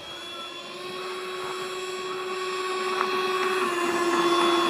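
Twin 70 mm ten-blade electric ducted fans of a model jet running at high power during its takeoff roll: a steady, high-pitched whine that grows louder.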